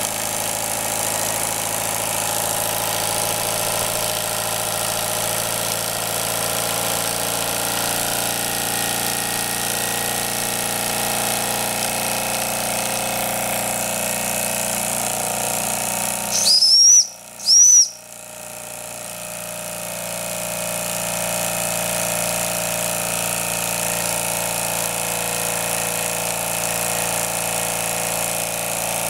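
Jensen 35 toy steam engine running steadily on its electrically heated boiler. About halfway through, two short, very loud sounds with a high squeal, a little under a second apart, break in. The running sound then builds back up over a few seconds.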